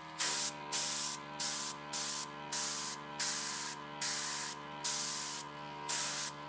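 Point Zero airbrush on its mini-compressor: the motor hums steadily while the airbrush gives about nine short hissing bursts of air, one every half second or so, as its air button is pressed and released.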